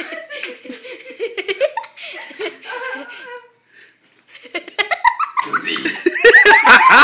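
Young people laughing and giggling. The laughter dies away briefly about halfway, then breaks out again near the end, louder than before.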